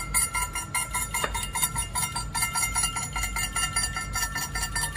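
Wooden woodpecker toy pecking its way down its pole: a rapid, even run of clicks with a steady ringing tone under them, stopping suddenly at the end.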